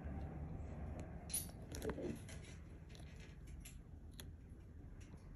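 Baby red-footed tortoise biting and tearing at a hibiscus leaf: faint crisp snips and crackles, the loudest about one and a half to two seconds in.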